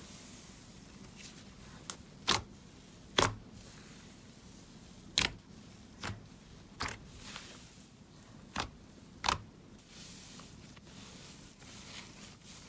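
Slime being pressed and worked, making a string of about nine sharp, irregular pops and clicks over a faint hiss.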